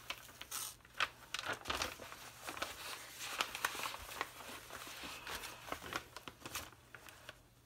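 Large plastic cover sheet of a diamond painting canvas crinkling and crackling irregularly as it is lifted, flexed and peeled back by hand.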